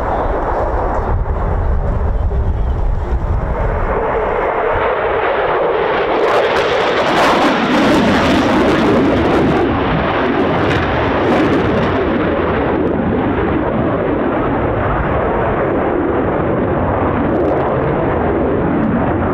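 Eurofighter Typhoon's twin EJ200 turbofan engines heard from the ground as the jet manoeuvres in the sky: a steady jet roar that swells to its loudest about seven to nine seconds in, then holds.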